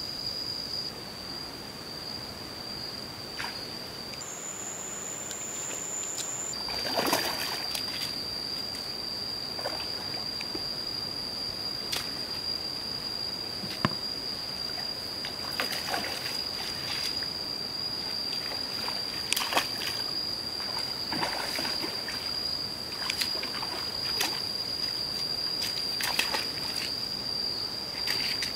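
A hooked fish splashing and thrashing at the surface as it is played on a bent fishing rod, in irregular splashes that start about seven seconds in. A steady high-pitched insect drone runs underneath.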